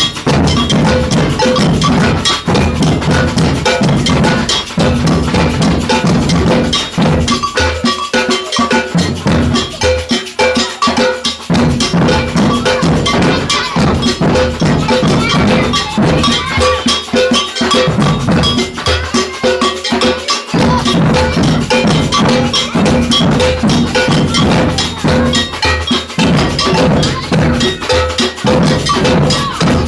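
Samba percussion band playing: an agogo bell rings a repeating pattern of a high and a low tone over surdo bass drums and snare drums. The bass drums drop out briefly a few times.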